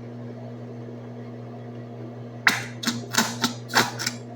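A steady low hum, then from about halfway in a quick run of six or so sharp clicks and taps.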